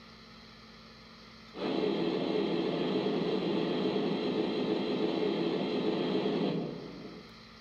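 Simulated steam hiss from a Lionel Legacy Berkshire 765 model steam locomotive's onboard sound system while it stands still: a steady rush that starts suddenly about a second and a half in and fades out about five seconds later.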